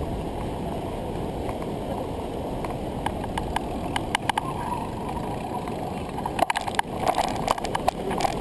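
Wind rushing over an action camera's microphone while riding a bicycle, a steady muffled noise. Scattered sharp clicks and rattles from the bike and camera mount come in about three seconds in and grow thicker near the end.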